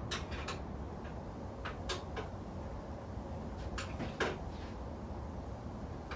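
Scattered light clicks and knocks of hand tools or parts being handled, over a steady low hum.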